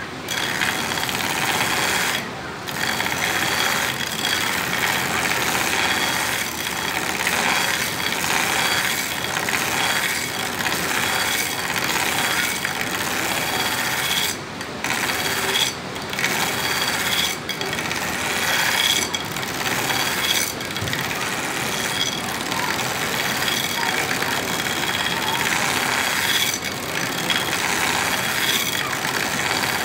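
Steel knife blade being ground against a running sanding belt on a belt grinder, a harsh continuous grinding with a steady high whine, broken a few times by brief drops where the blade comes off the belt between passes. The passes thin the blade gradually toward the tip to give it a distal taper.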